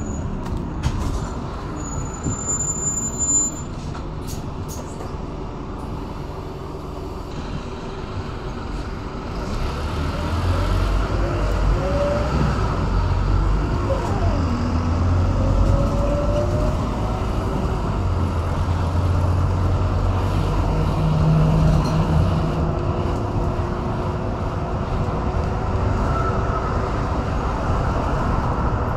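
Scania DC9 five-cylinder diesel and ZF Ecomat automatic gearbox of a Scania K230UB bus, heard from inside the passenger saloon. It runs lightly at first, then pulls harder from about ten seconds in, with a deeper rumble and a whine that rises and falls as the gearbox goes through its gears.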